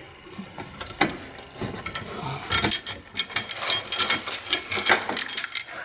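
Metal tools and wiper linkage parts clicking, rattling and clinking as the wiper linkage is worked loose: a few sharp clicks at first, then a quick, busy run of metallic clicks from about halfway in.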